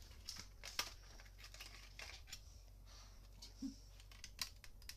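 Thin metal sheet being peeled off a computer part: faint crinkling with scattered sharp clicks.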